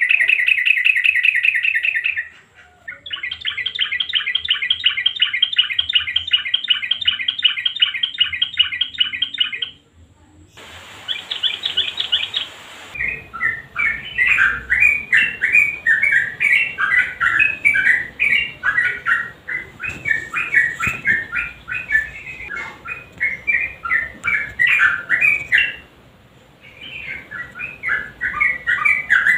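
Yellow-vented bulbul (trucukan) calling: rapid rattling trills, one held for about seven seconds, then from about 13 s a run of quick bubbly chattering phrases that pause briefly near the end and start again.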